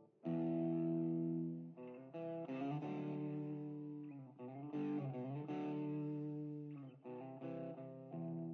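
Electric guitar playing sustained chords with effects, an instrumental passage of a band's song.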